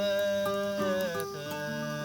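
Acoustic guitar with a voice singing a long held note, which gives way to shorter notes near the end.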